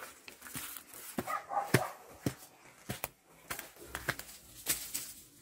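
Footsteps crunching through dry grass, leaves and twigs, a run of irregular crackles and snaps, with a short dog-like bark or call about a second and a half in.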